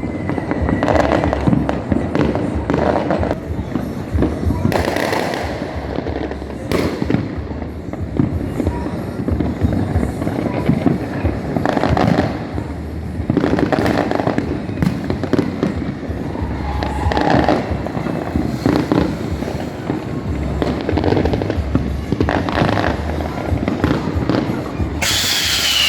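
New Year's fireworks going off one after another: repeated bangs and firecracker pops over a steady rumble of distant explosions. Near the end there is a loud high sound that falls in pitch.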